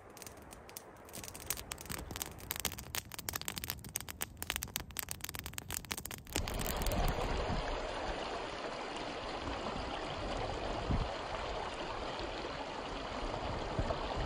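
Small campfire crackling, with irregular sharp pops and snaps. About six seconds in it gives way abruptly to a louder, steady rush of running water.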